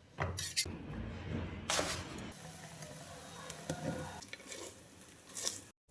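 Food sizzling in a frying pan as it is stirred, with a few louder stirring strokes.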